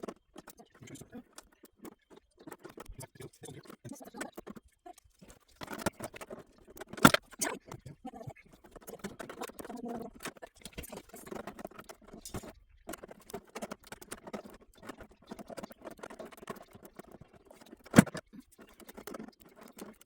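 3D-printed plastic parts being handled and fitted together: scattered light clicks and rattles, with two sharp loud clicks, one about seven seconds in and one near the end.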